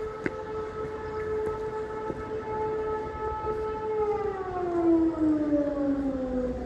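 Air raid siren sounding a steady wail; about four seconds in, its pitch begins to fall steadily as it winds down.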